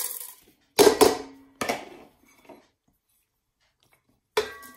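Wooden spoon and bowl knocking and scraping against a rice cooker's metal inner pot as rice is tipped in: a cluster of loud knocks about a second in, a few smaller ones after, then near the end a sharp clink with a brief ringing as the plate of aromatics is scraped into the pot.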